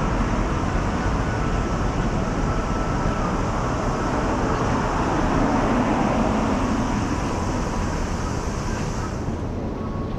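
Steady rushing noise of city street traffic, with a high hiss that drops away about nine seconds in.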